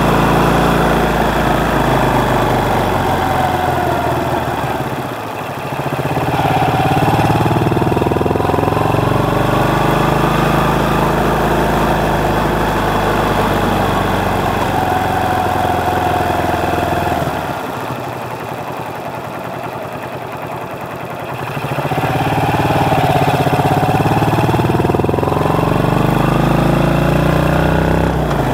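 Motorcycle engine running while riding in slow traffic. It revs up several times as the bike pulls away and shifts gears. It drops back to a quieter, low note briefly about five seconds in, and again for about four seconds past the middle, before rising again.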